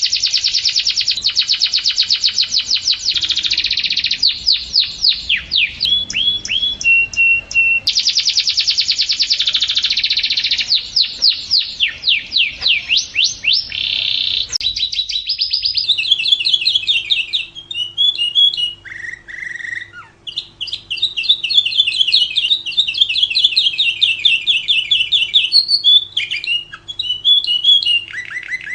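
Lovebird song: long, fast runs of high, shrill chirps repeated many times a second, broken by short pauses. After a brief gap about halfway through, the song goes on over a faint steady hum.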